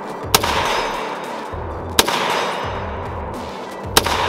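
Three shots from a .308 semi-automatic M1A SOCOM 16 rifle in an EBR chassis, about two seconds apart, over background music.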